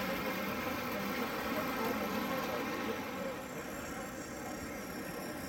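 Model trains running on a layout: a steady mechanical hum of electric motors and wheels on track over hall background noise. The sound changes slightly about three seconds in.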